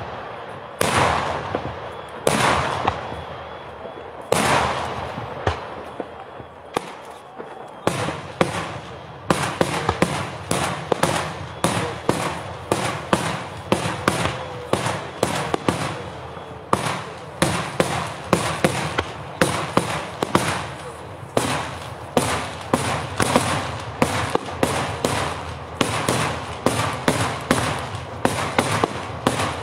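Daytime aerial fireworks: a few separate loud shell bursts, each with a long echoing tail, then from about eight seconds in a rapid run of sharp bangs, two or three a second.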